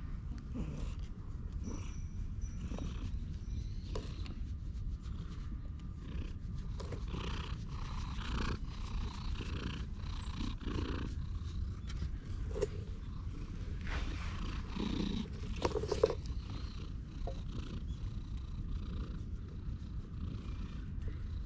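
Tabby cat purring steadily, close up, as it is stroked on the head. Occasional brief handling noises over it, with one sharp knock about sixteen seconds in.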